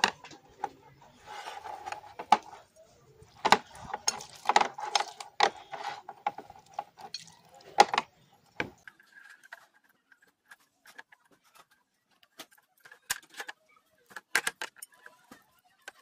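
Irregular clicks, knocks and light scraping of small metal parts being handled, busiest in the first half and sparser after that.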